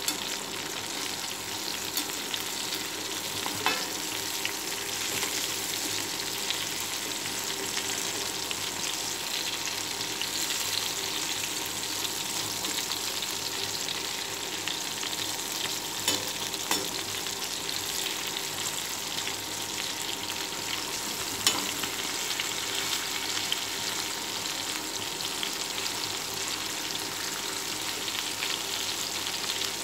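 Masala-marinated chicken pieces frying in hot oil in a pan: a steady sizzle and crackle. A few sharp knocks stand out, at about 4, 16 and 21 seconds in.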